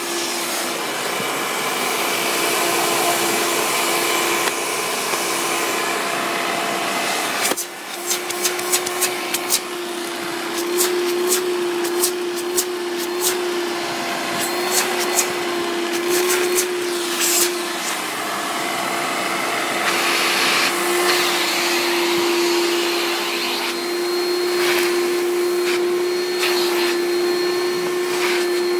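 A 1995 Hoover Turbopower 3 U2876 upright vacuum cleaner running steadily, with a constant motor tone under the rush of air. About seven seconds in the sound dips briefly, and then a run of sharp clicks and rattles follows for some ten seconds, as debris is picked up.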